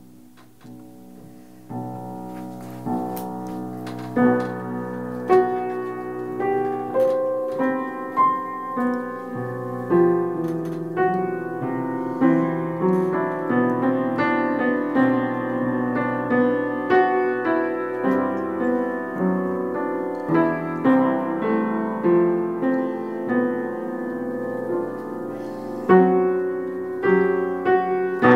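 Piano playing a slow piece of chords and single notes over a held bass, struck about once a second, faint at first and fuller from about two seconds in.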